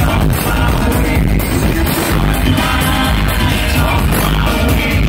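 Live electronic dance music played loud through a concert PA: a heavy bass beat and synthesizers, with a man singing into a microphone over it.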